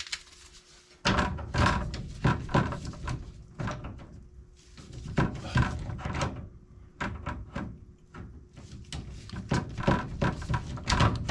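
Irregular knocks, clunks and clicks of hand work with hard objects, some in quick clusters, with a quieter gap about four seconds in. A faint steady hum runs underneath.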